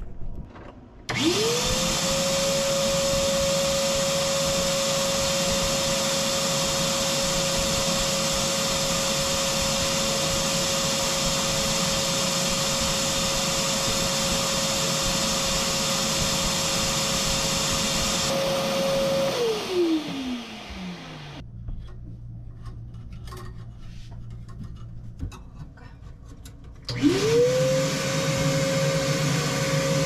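Vacuum cleaner switched on about a second in, its motor whining up to a steady high pitch and running with a loud rush of air. Near two-thirds of the way through it is switched off and winds down with a falling whine, then it is switched on again near the end.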